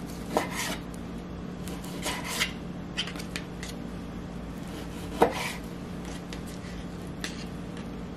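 Chef's knife slicing raw chicken thighs on a plastic cutting mat: irregular short knife taps and scrapes against the mat, the loudest about five seconds in. A steady low hum sits underneath.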